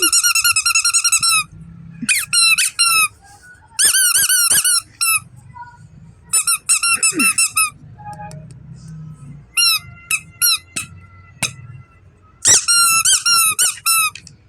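A squeaky baby toy squeaking in quick runs of high-pitched chirps, several squeaks a second, in about six bursts with short pauses between them.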